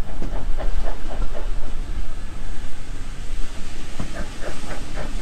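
Steam train on the move, the locomotive's exhaust beating rapidly at about six beats a second over a steady low rumble of the carriages; the beats drop away briefly midway and come back.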